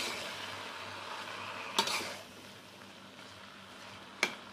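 Sawi (mustard greens) sizzling in hot oil in a wok while a metal spatula stirs them, with sharp clinks of the spatula against the wok about two seconds in and again near the end. The sizzle drops quieter a little after two seconds.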